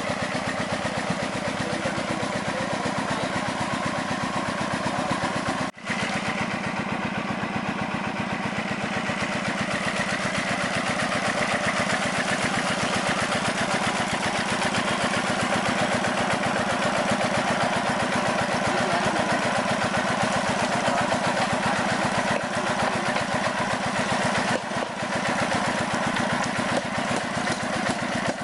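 Diesel engine running steadily at a constant speed with an even, rapid beat, driving the pump that jets water down the borehole for well drilling. The sound cuts out for an instant about six seconds in.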